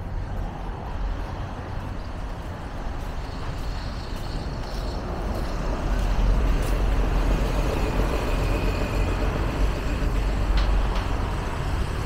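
Road traffic: engines and tyres of passing cars and larger vehicles in a steady rumble, growing louder about halfway through.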